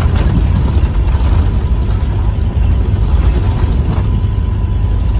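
Scania K230UB bus's engine and ZF automatic gearbox, heard from inside the passenger saloon, running steadily while the bus is under way. A faint steady whine comes in about three seconds in.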